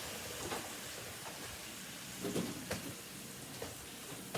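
Ground meat frying in a pan on high heat: a steady sizzle, with a few faint clicks and taps of a utensil or cookware.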